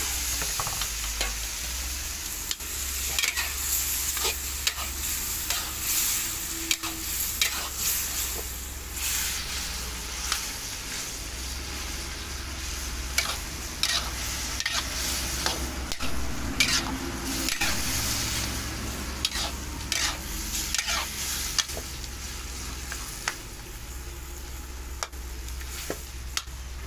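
Pork and tomato frying and sizzling in a steel wok, with a metal spatula scraping and turning them again and again. The sizzle is strongest at the start, just after the pork has gone into the pan.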